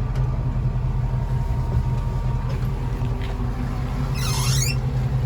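1969 International Scout 800A engine idling with a steady low rumble as it warms up from a cold start. A brief high chirp sweeps down and back up about four seconds in.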